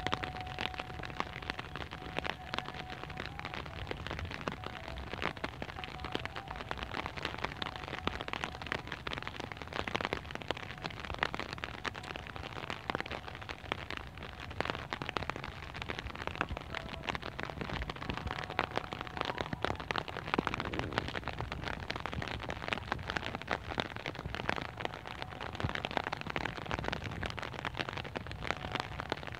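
Steady rain: a constant hiss crowded with many small, sharp drop ticks, unbroken and even in level.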